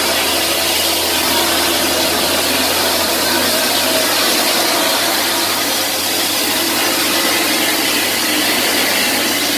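Concrete mixer truck and pumping machinery running: a loud, steady engine and machine noise with a low hum that shifts slightly about three and a half seconds in.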